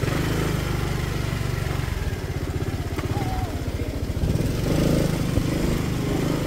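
A small engine running steadily with an even low pulse, a little louder for a moment about two-thirds of the way in.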